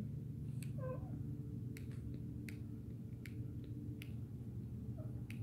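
Scattered short, sharp clicks and pops, about seven over a few seconds, from a plastic bottle of Suave Kids 3-in-1 shampoo as it is squeezed and thick liquid squirts out into a bowl.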